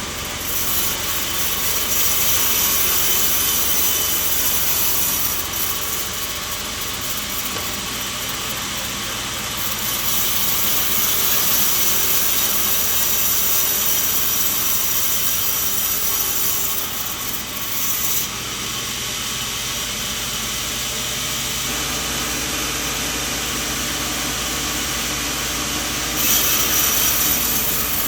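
Sawmill blade cutting through a coconut log, a continuous hissing saw noise over the steady hum of the machine's motor. The cutting noise swells and eases several times.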